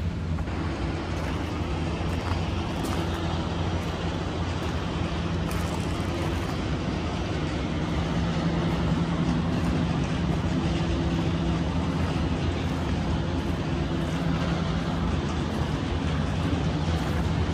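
Diesel locomotive engine running with a steady deep drone, slowly growing louder.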